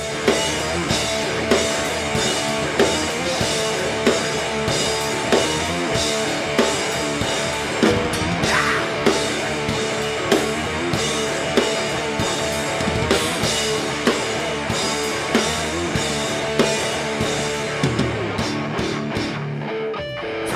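A live heavy rock band playing: electric guitars and a drum kit, with hard accented hits about every second and a quarter.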